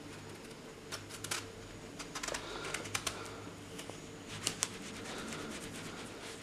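Kitchen knife slicing a whole eggplant lengthwise in the hand, with faint scattered clicks and scrapes as the blade works through skin and flesh, the sharpest pair about four and a half seconds in.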